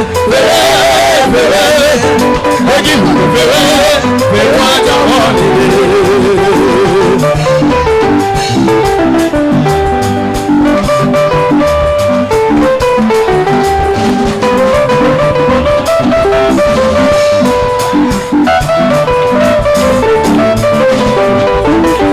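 Loud live church worship music with a drum beat and held instrumental notes, a voice singing over it for the first few seconds.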